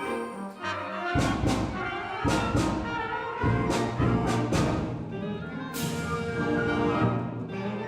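High school concert band playing: sustained brass chords punctuated by repeated percussion strikes, starting about a second in.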